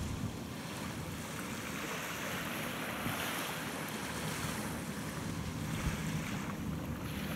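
Wind buffeting the microphone over water washing along the shore, with the low, steady drone of a fishing boat's engine passing at a distance.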